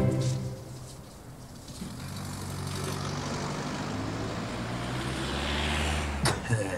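A motor vehicle's engine running at a steady low pitch, growing slightly louder, with a couple of sharp clicks near the end. The tail of a short musical sting fades out in the first second.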